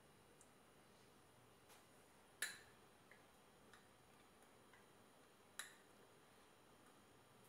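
A metal spoon stirring dry gram flour and spices in a small glass bowl: two sharp clinks of spoon on glass, about two and a half and five and a half seconds in, with a few faint ticks between, otherwise near silence.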